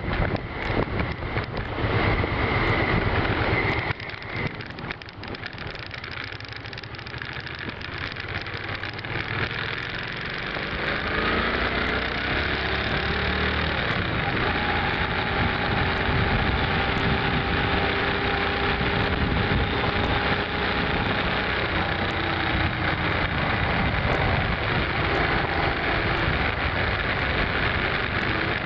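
V-twin cruiser motorcycle engine under way, with a loud rushing noise that cuts off suddenly about four seconds in. The engine note then climbs over several seconds as the bike accelerates, and settles into a steady cruise.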